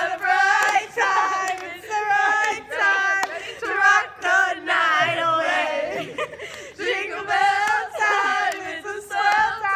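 A group of young women yelling and singing together in high, drawn-out voices, with no break.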